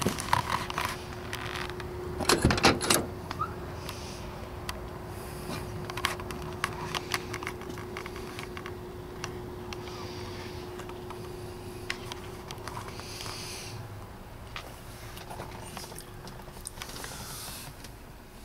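Car door on a 1955 Chevrolet Nomad station wagon being opened, with the clicks and knocks of someone handling it and climbing into the cabin. The loudest clatter comes about two to three seconds in. A faint steady hum runs under it and fades out a little past the middle.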